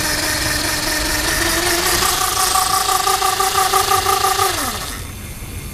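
Lightning Rods Big Block mid-drive e-bike motor spinning with no load on light throttle: a steady electric whine over a hiss, which steps up in pitch about two seconds in, then falls in pitch as the motor spins down and stops about five seconds in.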